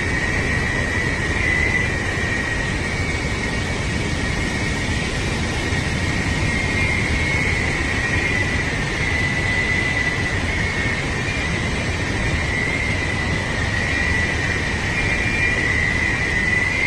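Floodwater rushing through open dam gates, a loud, steady roar with a deep rumble and a high whine that wavers slightly on top.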